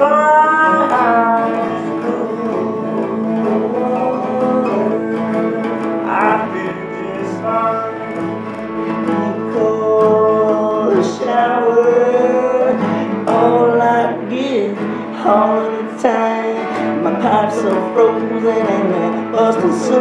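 Blues song: guitar accompaniment under a melody line that slides between notes.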